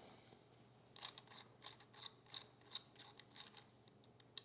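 Faint small clicking and ticking of a Bench Dog router plane's brass depth-adjuster knob being turned by hand along its threaded rod, starting about a second in and going on at a few ticks a second. The adjuster feels rough rather than smooth, which may mean the threads in the adjuster and rod are not very precise.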